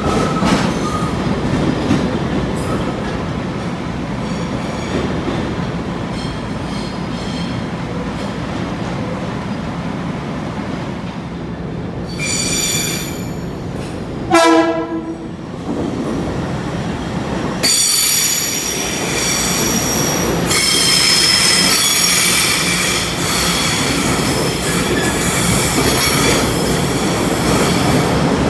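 Long Island Rail Road M3 electric multiple-unit cars rolling past: a steady rumble of wheels on rail with high-pitched wheel squeal, faint in the first half and strongest in the last ten seconds. About halfway through comes one brief, loud sound that falls in pitch.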